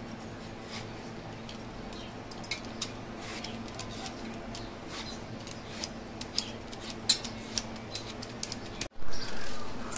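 A vegetable peeler scraping the skin off a raw green mango in a run of short, scratchy strokes, over a steady low hum. Near the end the sound cuts out briefly and comes back louder.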